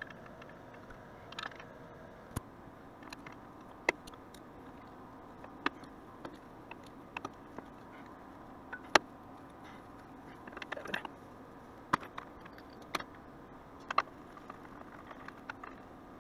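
Scattered sharp metallic clicks and clinks of hand tools and hardware against engine parts, a dozen or so, over a steady low hum. The loudest knock comes about nine seconds in.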